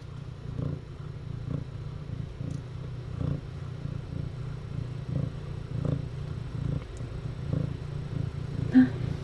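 Domestic cat purring steadily and close, the purr swelling and easing rhythmically with its breathing.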